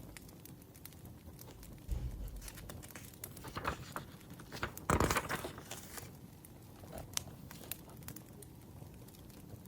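A wood fire crackling with scattered sharp pops, and a stretch of paper rustling in the middle, with a dull thump about two seconds in.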